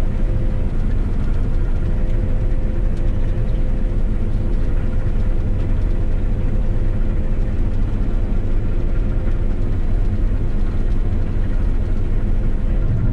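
Claas Lexion 670 combine harvester running steadily: a deep engine drone with a steady whine from the machinery above it.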